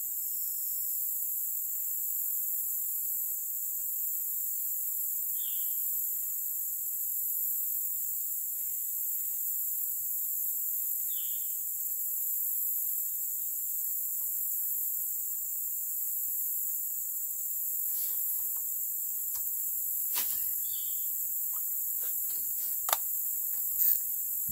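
A steady, high-pitched chorus of insects, with a few short chirps scattered through it. Several sharp clicks and knocks come in the last few seconds.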